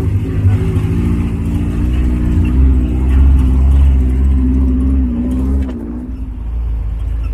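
Off-road jeep's engine running under load, its pitch wavering up and down; it is loudest in the middle and eases off about six seconds in.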